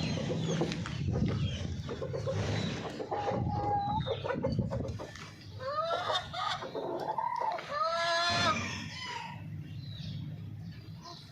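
Golden Misri chickens clucking and calling, with a low background rumble in the first half. Midway comes a run of loud, drawn-out calls that arch up and down in pitch, after which the calling dies down.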